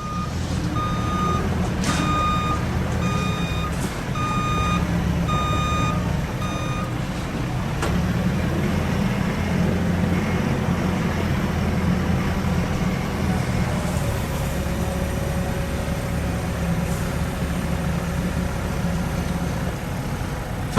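Truck reversing beeper sounding about once a second, stopping about seven seconds in, over the steady low running of a heavy diesel engine. A few short knocks come through, and the engine keeps running after the beeping stops.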